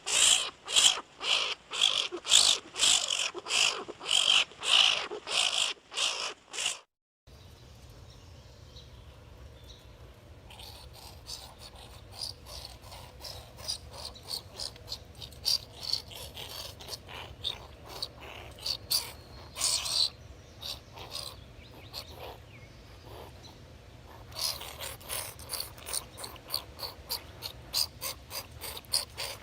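Skunk vocalizations: a quick run of high-pitched squeaks and chirps, about three a second, then after a cut a quieter recording with a low hum under scattered chirps and clicks, and rapid chirping again near the end.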